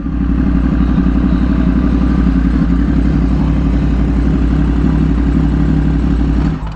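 Yamaha YZF-R1's inline-four engine running at a low, steady idle as the bike rolls slowly. The engine is switched off near the end.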